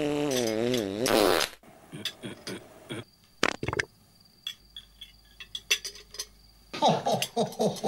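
A long fart sound effect, pitched and wavering, that bends upward before cutting off about a second and a half in. Light clinks of cutlery and dishes follow, and near the end comes a short stuttering burst.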